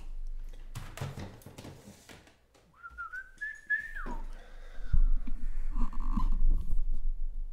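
A person whistles one short note of a bit over a second, rising slightly and then sliding down as it ends. From about five seconds in come louder low thumps and rumbling.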